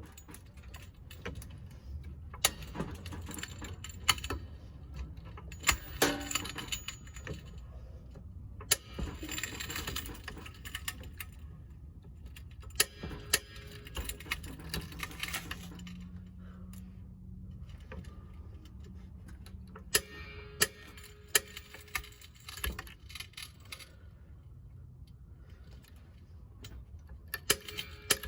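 Floor jack and jack stands being handled and placed under a car: scattered metal clanks, clicks and rattles, with busier stretches of clatter.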